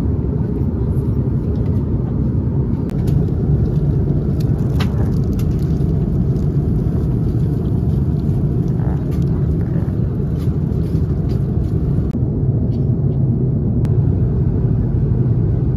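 Steady low rumble of a vehicle in motion, with no change in level.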